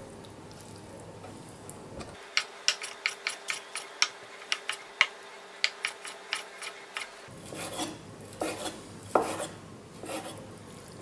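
Kitchen knife chopping crayfish tail meat into small chunks on a wooden chopping board: a quick, regular run of sharp taps, about four a second, starting about two seconds in, then softer, sparser knocks near the end.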